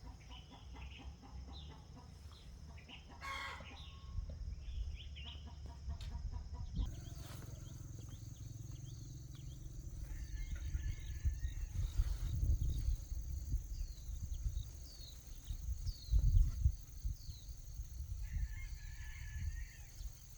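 Chickens, with a rooster crowing twice, about halfway through and again near the end, over a low rumble; small birds chirp faintly in between.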